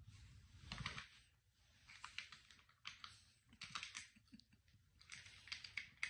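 Faint plastic clicking and clattering from a round dog puzzle feeder as a puppy noses and paws at its covers to get the treats, in short bursts of clicks about a second apart.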